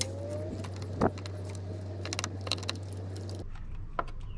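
Metallic clinks and ticks of a hand wrench working the nut on a car starter's wire terminal, with one sharper clank about a second in. A steady low hum sounds underneath and cuts off about three and a half seconds in.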